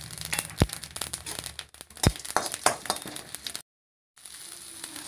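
Cumin seeds and black peppercorns crackling in hot oil in a kadai, with a couple of sharper clicks. After a brief cut-out near the end, a faint steady sizzle of chopped onion frying.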